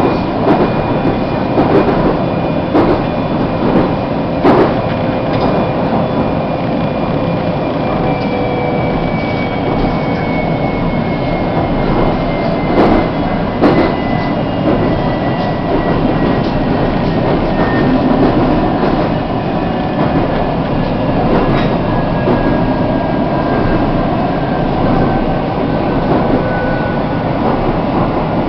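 A CSR electric multiple unit running, heard from inside the car: a steady rumble with scattered clicks and knocks from the wheels on the track. A faint electric whine falls slowly in pitch as the train slows.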